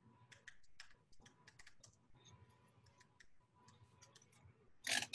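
Fillet knife cutting through a pollock's rib bones and flesh: a faint, rapid, irregular run of light clicks, with one short, louder burst of noise near the end.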